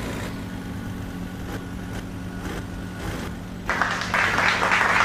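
Truck engine idling with a steady low hum. About three-quarters of the way in, a loud hissing rush comes in over it.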